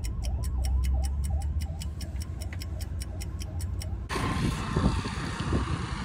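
A Mercedes-Benz's turn-signal indicator ticks rapidly and evenly in the cabin over low road rumble as the car pulls over. About four seconds in it gives way to wind buffeting the microphone.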